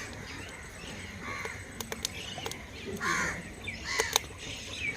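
A bird calling a few times in arching calls, the loudest about three seconds in and another about a second later, with a few sharp clicks in between.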